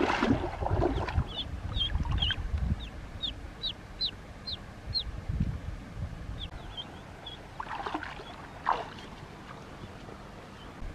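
Ducklings peeping: a run of short, high cheeps, about two a second, fading to a few scattered peeps later. Under them, water splashes and sloshes around legs wading in a shallow river, loudest in the first few seconds.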